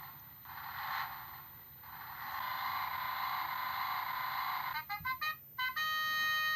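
Toy car's electronic engine sound effect played through a small tinny speaker: a rough, swelling rev, then a steadier run, ending in a quick series of short beeping tones and a held electronic tone that cuts off suddenly.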